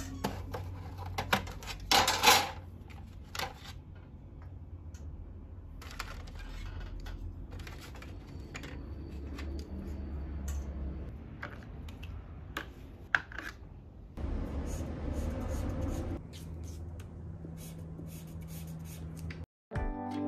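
Prismacolor coloured pencils clicking and clattering against their metal tins as they are handled and picked out, with a louder rattle about two seconds in, over a low steady hum.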